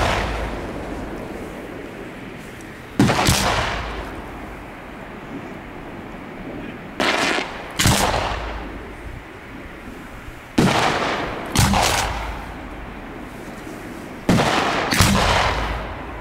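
Aerial fireworks going off: loud bangs, one about three seconds in and then three pairs about a second apart, each echoing away.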